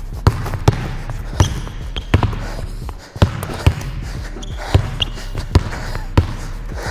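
Basketball dribbled on a hardwood gym floor: sharp bounces, each half a second to a second apart, over a steady low hum.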